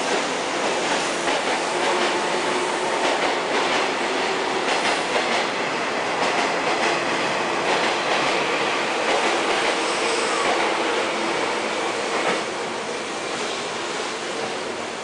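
Electric commuter train running alongside a station platform, its wheels clattering over the rail joints. The noise eases a little about twelve seconds in.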